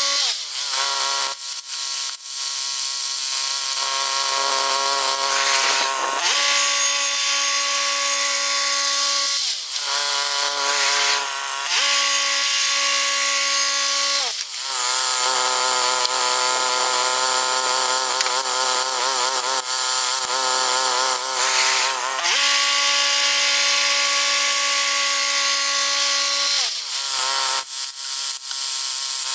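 Bandsaw sawmill's engine running with the band blade cutting pine, the engine note stepping down and back up in pitch several times. For several seconds in the middle its pitch wavers as it works under load in the cut.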